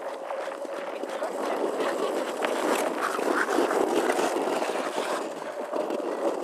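Skate blades and a person's body sliding over lake ice: a rough scraping hiss, louder in the middle.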